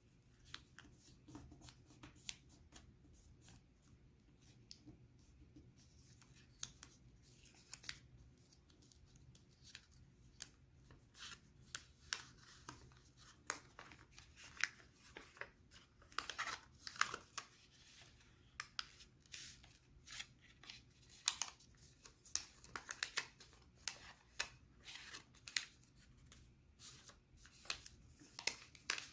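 Origami paper being folded and creased by hand: faint crisp rustles and crackles, sparse at first and coming thicker and louder from about halfway through.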